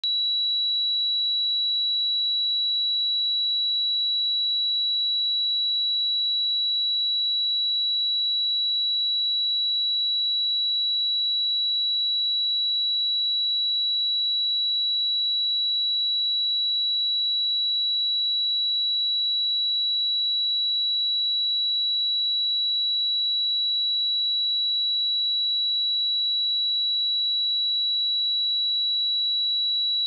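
A single pure sine-wave test tone at 3916 Hz, a steady high-pitched whistle-like tone held at a constant level.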